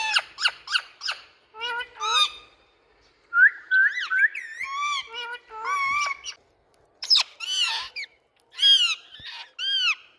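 Indian ringneck parrots giving loud, repeated calls: short harsh screeches and some rising-and-falling whistled notes, in quick bursts with brief pauses.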